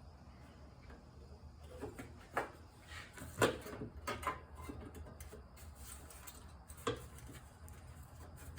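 Recoil starter being set onto a Briggs & Stratton Quantum lawnmower engine and shifted to line it up: a handful of light knocks and clicks, the loudest about three and a half seconds in, over a faint steady low hum.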